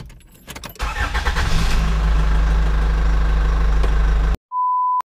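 A car engine starting: a brief ticking start, then it catches about a second in and runs at a steady idle before cutting off abruptly. A short steady beep follows near the end.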